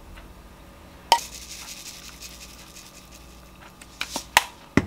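Wooden spoon knocking against a frying pan and a ceramic pot as stir-fried cabbage and bacon is scraped into the pot: one sharp knock about a second in followed by a short rustling scrape, then a few quick sharp knocks near the end.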